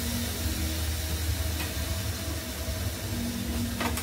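Steady hiss and low hum of a gas stove burner under a pan of frying chow mein. A utensil clatter starts right at the end.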